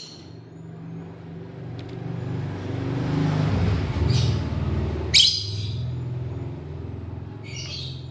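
Lovebird giving three short, shrill chirps, the loudest about five seconds in, over a low rumble that swells in the middle and then fades.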